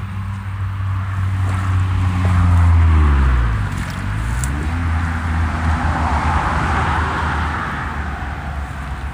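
A motor vehicle driving past, its engine hum loudest about three seconds in and shifting in pitch as it goes by.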